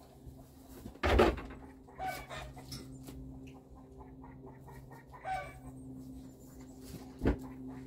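Chickens clucking in short calls, with a loud burst about a second in and a sharp knock near the end, over a steady low hum.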